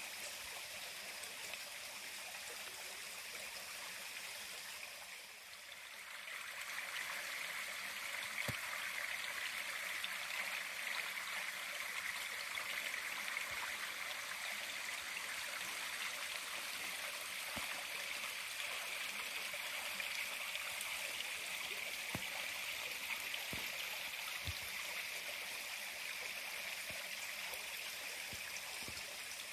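Steady rushing of a creek's flowing water. It dips briefly about five seconds in, then runs a little louder, with a few faint taps scattered through it.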